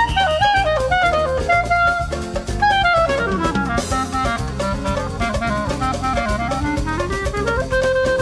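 Clarinet playing a fast samba melody over a backing track of drums and bass. About three seconds in, a run sweeps down into the instrument's low register, then climbs back up to a held note near the end.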